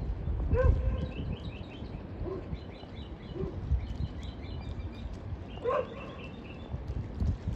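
Small birds chirping in quick runs of short, high notes, with two louder, lower animal calls, one about half a second in and one near the end, and a low rumble underneath.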